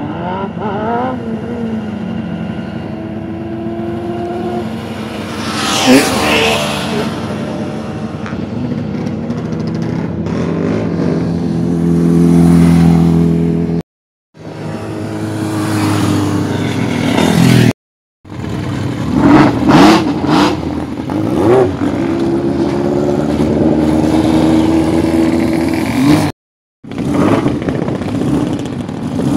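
Classic racing motorcycle engines revving and passing at speed, the pitch rising and falling through the gears, with one close pass about six seconds in. The sound cuts off abruptly three times between clips.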